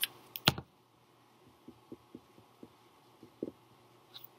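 A sharp click about half a second in, then faint, scattered soft taps and scratches of a marker writing on a handheld whiteboard.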